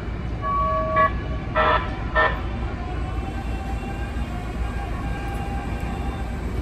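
Siemens P2000 light-rail train sounding its horn as it pulls away: one held note about half a second long, then two short toots. A steady low rumble follows, with a faint rising whine as the train gathers speed.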